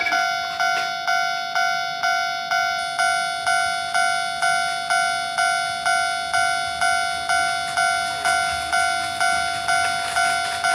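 Level-crossing warning bell ringing, an even ding repeated about three times a second, each ding one bright pitched tone with overtones.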